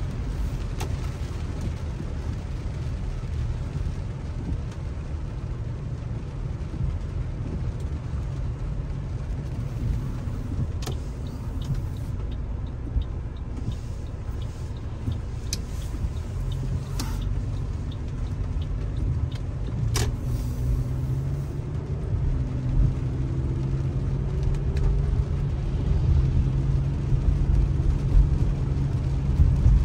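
Car interior noise while driving on wet roads: a steady low road and engine rumble. In the second half the engine tone rises as the car speeds up. A few sharp clicks are heard along the way.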